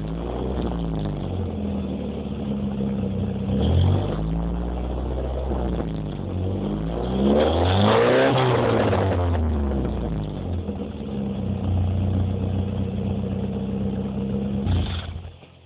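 VW Golf Mk2's engine idling through a newly fitted twin-tailpipe exhaust. It is blipped briefly about four seconds in, revved up and back down around eight seconds in, and blipped once more near the end, then switched off.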